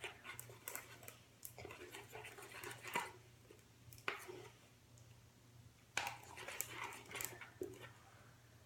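Slime of glue, shaving foam and activator being stirred in a bowl with a paintbrush: irregular sticky squelches and scrapes, with two sharp clicks of the brush against the bowl. The slime is still thickening as the activator works in.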